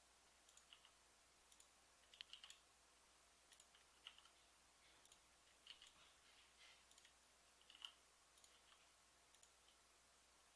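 Faint, irregular clicks of a computer mouse and keyboard, about one or two a second, over near silence.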